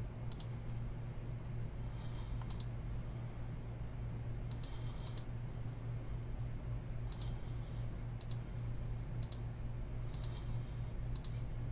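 Computer mouse button clicking, about nine single sharp clicks at uneven intervals of roughly a second, over a steady low electrical hum.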